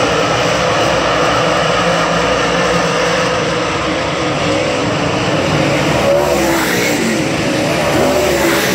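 A pack of dirt late model race cars running at speed, their V8 engines making a loud, steady din. From about six seconds in, individual engine notes are heard rising and falling in pitch.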